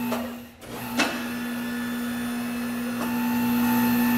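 Electric drive motors of a Hunter Revolution leverless tire changer running an automatic cycle on a mounted wheel, a steady hum. It dips briefly in the first second, there is a click about a second in, and the hum grows a little louder about three seconds in.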